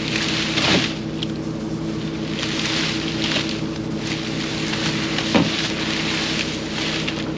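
Engine running at a steady speed, with hiss that swells and fades. Two brief falling whooshes come about a second in and about five seconds in.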